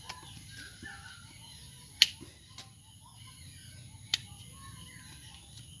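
Pruning shears snipping through small ficus branches: a sharp snip about two seconds in and another about four seconds in.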